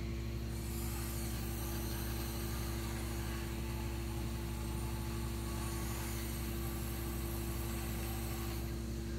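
Small electric gear motors of a radio-controlled Bruder toy loader whirring as it drives and lifts its loader arm. The whir starts about half a second in and stops near the end, over a steady low hum.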